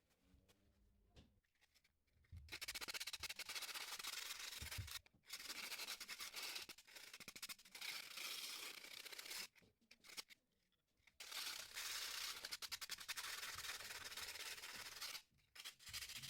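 Rapid, gritty scrubbing or sanding strokes in four long spells separated by short pauses, as a soldering iron tip is cleaned.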